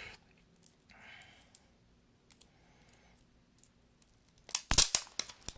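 Sharp clicks and crackles from hands working small phone parts and plastic by a partly opened iPhone SE during a battery replacement. They are sparse and faint at first, then come as a dense run of loud clicks from about four and a half seconds in.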